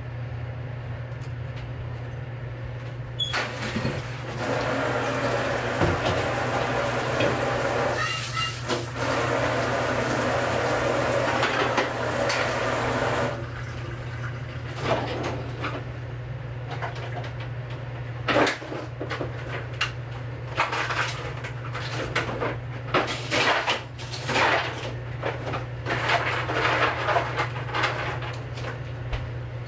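Kitchen water running for about ten seconds, starting a few seconds in, then a string of clinks and knocks of dishes and utensils being handled, over a steady low hum.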